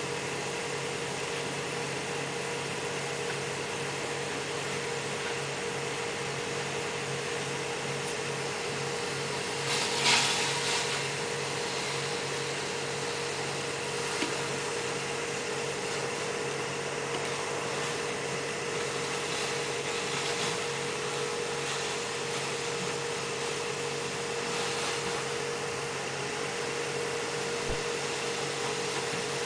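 Steady drone of a motor-driven blower running at a constant pitch. A brief hiss rises over it about ten seconds in.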